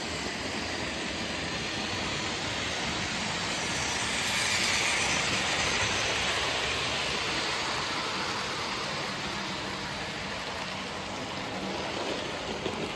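Hornby OO gauge model trains running round the layout: a steady whirring rumble of small motors and wheels rolling on the track. It swells for a few seconds from about four seconds in as the blue Mallard model locomotive passes close, then eases off.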